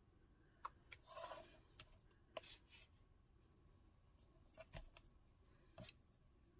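Faint handling sounds of 1/8 inch double-sided tape being pulled from its roll and pressed along a thin paper strip: a short scratchy rasp about a second in, then scattered light clicks and taps.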